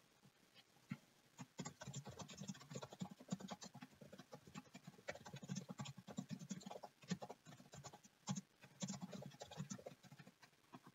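Faint typing on a computer keyboard: quick, irregular key clicks, starting about a second and a half in.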